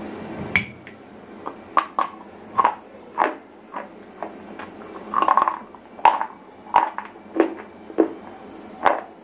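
Dry white shele stone bitten and chewed right at a lapel microphone: a run of crisp, sharp crunches, roughly one or two a second, with a longer grinding cluster about five seconds in.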